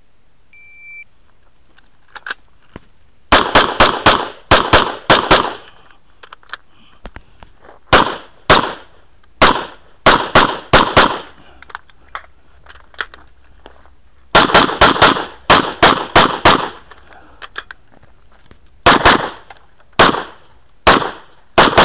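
A shot timer's short start beep, then an AR-15-style semi-automatic rifle firing in rapid strings of shots, several a second, with pauses of a second or more between strings.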